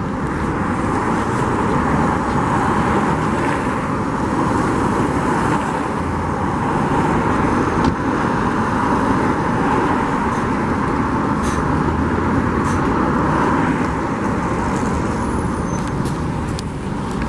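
Steady city traffic noise from a wide road, with cars and buses passing.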